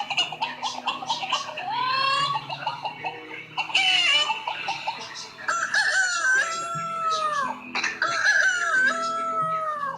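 Rooster-like crowing and clucking: a run of short gliding calls, then two long falling crows in the second half.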